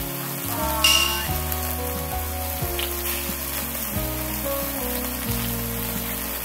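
Meat sizzling on a barbecue grill under background music. There is a short bright clink about a second in.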